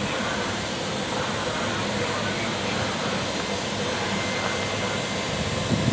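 Steady hum and whine of a train at an arriving, with a couple of low thumps right at the end.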